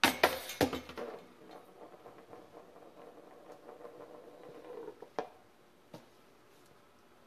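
A disc slams into the chains of a disc golf basket: a loud metallic crash with a few quick strikes, then the hanging chains jangle and ring, fading over about five seconds. A sharp click near the end and a fainter one after it.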